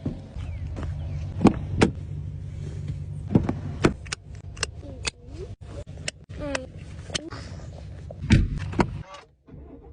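Inside a car: a steady low engine and road hum, broken by a string of sharp, irregular clicks and knocks. The hum cuts out about nine seconds in.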